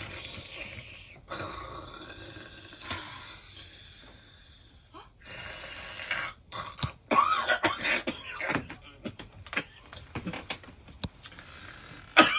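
A person coughing and clearing their throat, loudest in a run of short coughs from about seven seconds in, with a sharp loud sound near the end.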